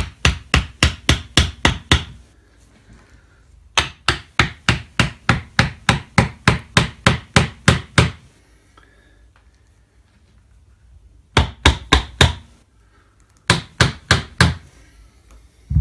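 Hammer tapping clamping wedges into a glue-up jig: quick light blows at about four a second, in four runs separated by short pauses. The wedges drive the clamping pressure across a glued board joint.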